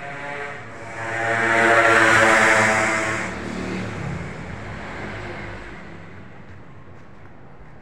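A motor vehicle driving past: its engine note swells to a peak about two seconds in, then fades away over the next couple of seconds.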